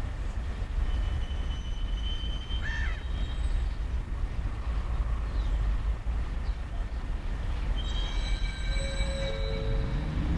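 Diesel-hauled freight train of loaded stone hopper wagons passing, a heavy low rumble throughout. Wheel flanges squeal now and then, a thin squeal early and a louder, fuller squeal in the last two seconds.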